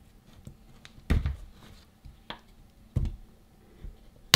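Plastic prying tool clicking and scraping against the spot-welded nickel strips on the lithium-ion cells of a drill battery pack as the welds are prised up: about four sharp clicks, the loudest a snap near the end.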